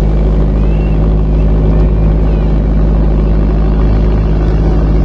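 Engine of a small wooden motor boat running steadily underway, a loud constant drone.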